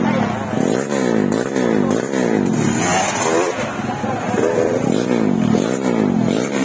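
Motocross dirt bike engines revving up and down over and over, each climb and drop in pitch lasting about half a second, with more than one bike heard at once.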